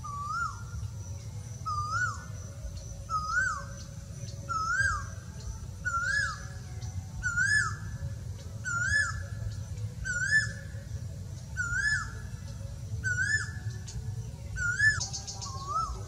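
Male Asian koel calling: a series of about a dozen 'ko-el' notes, one every second and a half or so, each rising then dropping in pitch, the series climbing slightly in pitch and loudness as it goes.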